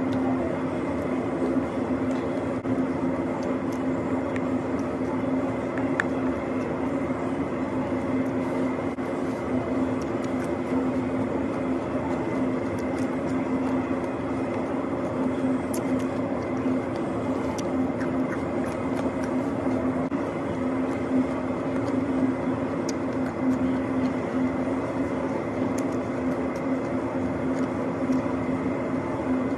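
Steady machinery drone with a strong low hum tone and fainter higher tones, with a few faint ticks over it.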